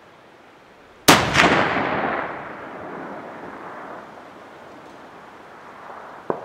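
Long-range rifle shot: a sharp crack about a second in, a second report a moment later, then a long rolling echo that fades over about three seconds. A short sharp crack near the end.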